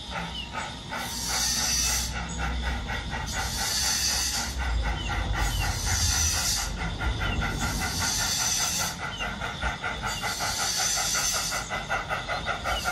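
On-board sound unit of a battery radio-controlled 32mm gauge Ffestiniog 0-4-0 'Prince' model steam locomotive under way: a fast, even chuff beat with a burst of steam hiss about every two seconds, over a low rumble from the running train.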